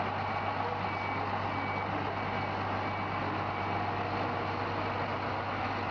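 Fire truck's diesel engine running steadily, with its reversing alarm giving repeated high beeps.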